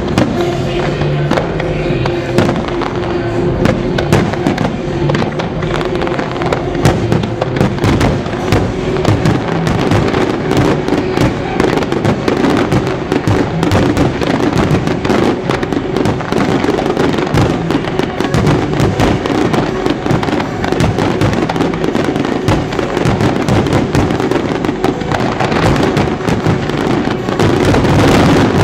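Aerial firework shells bursting in a dense barrage of bangs and crackles, building to the loudest stretch near the end, with music playing underneath.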